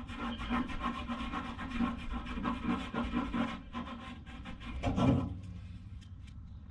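Fingers scratching and rubbing at heavy rust and sludge on the bottom of a rusted-out Ford Festiva fuel tank, inside the tank. The scratching fades after about three and a half seconds, and a single louder knock comes about five seconds in.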